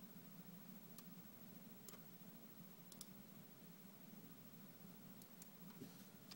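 Near silence with a faint, steady low hum, broken by a handful of sharp, isolated clicks from a computer mouse and keyboard.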